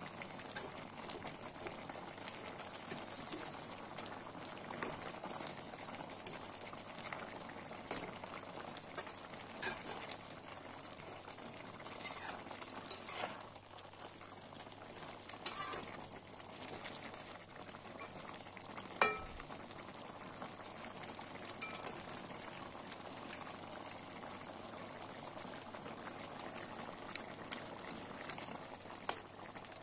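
A saucy dried-fish and potato curry simmering and sizzling steadily in a metal kadai, stirred with a slotted metal spatula that scrapes and clinks against the pan now and then, with one sharper clink about nineteen seconds in.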